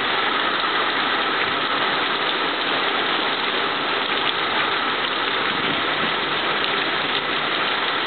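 Heavy thunderstorm rain pouring down, a steady dense hiss that doesn't let up.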